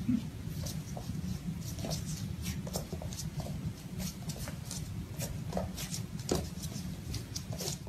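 A puppy's claws clicking and pattering irregularly on a hard tiled floor as it scampers, over a steady low hum.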